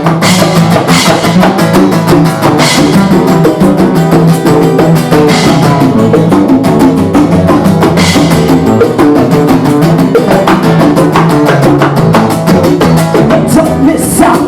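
Strummed acoustic guitar with hand drums and other hand percussion playing a steady, upbeat groove, with no vocals yet.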